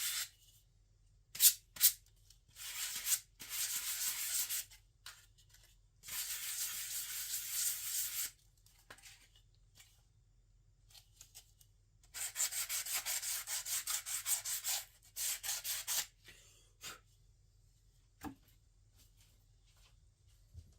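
Sandpaper rubbed by hand over pine parts in three spells of quick back-and-forth strokes, with quiet pauses between. Two sharp knocks about one and a half seconds in are the loudest sounds.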